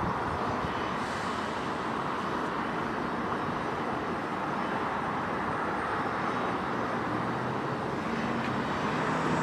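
Jet airliner engine noise, a steady rush that grows a little louder near the end.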